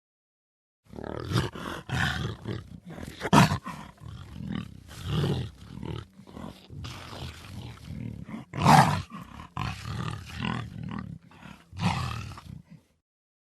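Cheetah calling in a run of irregular, rough calls, two of them much louder than the rest: one a few seconds in and one about two-thirds of the way through.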